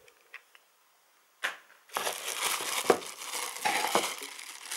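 Clear plastic packaging bag crinkling and crackling as hands pull a power supply out of it. It begins with one short rustle about a second and a half in and runs on continuously from about two seconds in.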